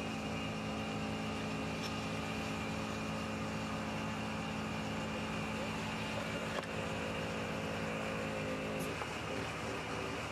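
Engine of a hydraulic pump unit running steadily under load, powering a hydraulic jack lifting a derailed electric locomotive; its note shifts about nine seconds in. A few faint metallic clinks.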